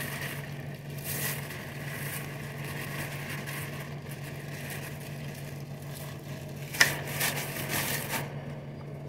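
Plastic bag rustling and crinkling as flour is shaken out of it into a steel mixing bowl, louder for a moment about seven seconds in, over a steady low hum.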